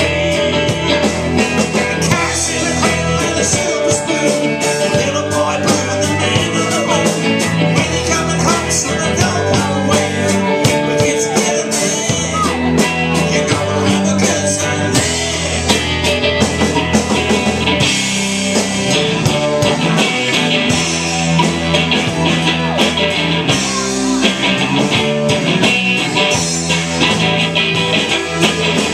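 Live rock band playing an instrumental passage: electric guitar over electric bass guitar and a drum kit.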